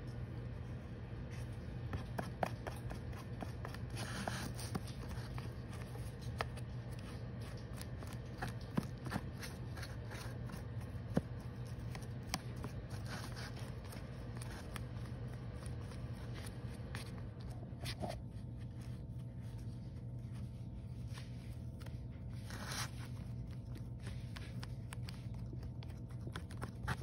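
Paintbrush scraping and dabbing over a painted mask surface, with scattered small clicks and taps over a steady low hum.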